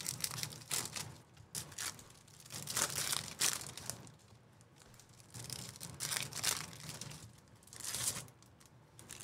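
2024 Topps Chrome Baseball card pack wrappers being torn open and crinkled, in a run of short rustling bursts with brief pauses between them.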